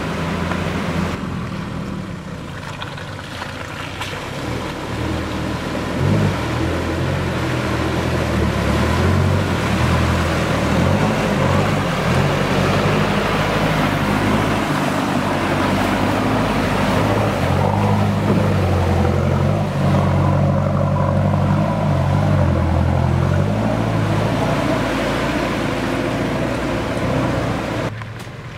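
A four-wheel drive's engine revving up and down as it churns through deep mud ruts, with mud and water splashing under the tyres. It grows louder about six seconds in as it comes close, and drops off suddenly near the end.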